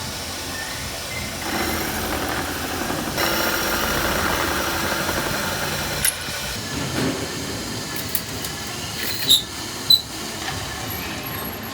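Workshop machinery running steadily, louder for the first half and then easing off, with two sharp metallic clicks near the end.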